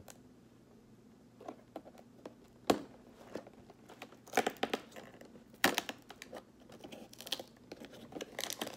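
Cardboard door of an advent calendar being picked at and pried open by hand: scattered clicks, scratches and small tearing sounds, the sharpest click a little under 3 seconds in, getting busier near the end.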